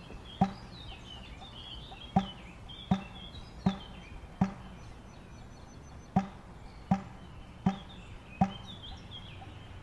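Soft thuds at an even, slow pace, about four in a row with a short pause between groups. Faint bird chirping and a low steady hum run underneath.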